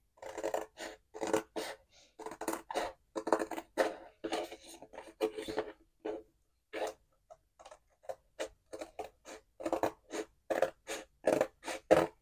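Scissors snipping through cereal-box cardboard covered with laminated printable vinyl sticker paper: a run of short, crisp cuts, about two or three a second, thinning out for a couple of seconds midway.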